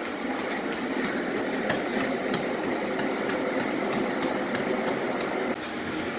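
Gym exercise machine running with a steady mechanical noise and a few scattered clicks.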